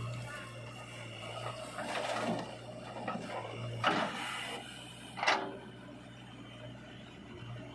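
Machinery working: a steady low hum with three short clunks or scrapes, about two, four and five seconds in, the last two the loudest.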